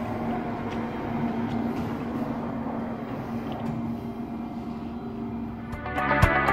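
Steady mechanical hum with a held low tone and a few faint ticks. Near the end, music with a drum beat comes in.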